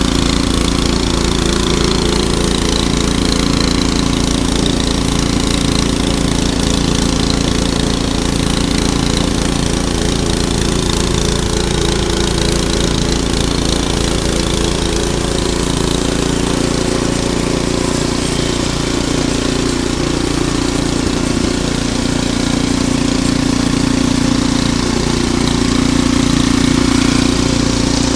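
Ariens Deluxe 28 snowblower engine running steadily, its note shifting slightly about two-thirds of the way in.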